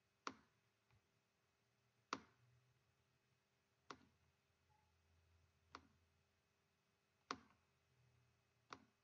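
Computer mouse button clicking, six single sharp clicks spaced about one and a half to two seconds apart, over a quiet room.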